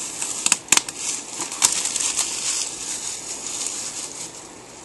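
Plastic and cardboard packaging rustling and crinkling as it is handled, with a few sharp crackles in the first second and a half.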